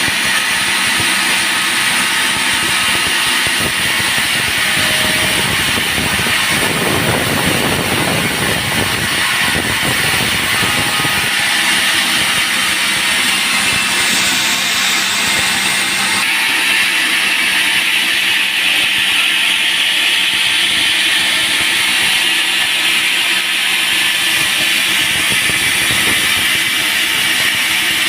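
Band sawmill running and sawing through a dry teak log: a loud, steady hiss of the blade in the wood over the machine's hum, growing heavier for a few seconds about a quarter of the way in.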